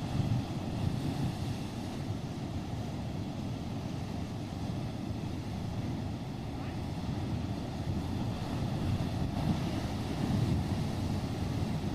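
Steady low rumbling noise with no clear pitch, swelling and ebbing slightly in level, like a sea or wind ambience.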